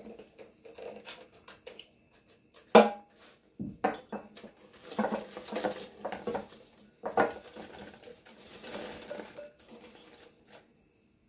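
Plastic air-fryer basket being handled and tipped, cooked potato gnocchi dropping out of it into a glass bowl: scattered knocks and clinks, one sharp knock a little under three seconds in, then a dense patter and clatter of gnocchi hitting the glass.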